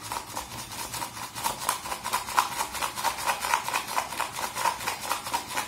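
Manual whisk beating instant coffee, sugar and cold water in a plastic tub: a steady rhythm of clicking, splashing strokes, about three a second, as the mixture is whipped towards dalgona foam.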